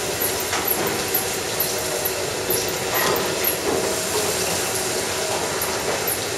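Milking machinery running in a dairy milking parlour: a steady drone of the vacuum system with a regular clicking and hissing from the milking-unit pulsators, a few clicks a second.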